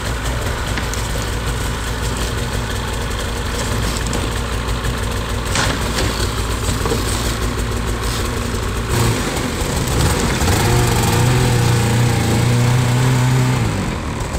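Snowmobile's two-stroke engine running at low throttle as the sled is driven off a trailer ramp, with a couple of knocks partway through. Near the end it is revved to a higher, steady note for a few seconds, then eased off.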